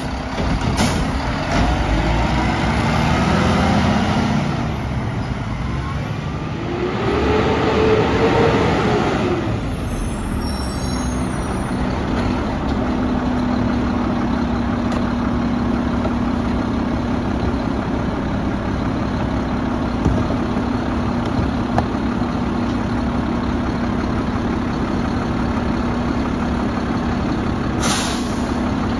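Mack LR garbage truck's diesel engine, revving up and down twice as the hydraulics are worked, then running steadily with an even hum. A short hiss near the end.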